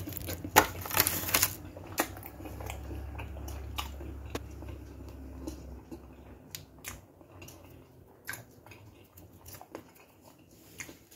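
A person biting into a grilled tofu burrito with a crunchy toasted wrap and chewing it. A loud crunchy bite comes about a second in, followed by quieter chewing with scattered clicks.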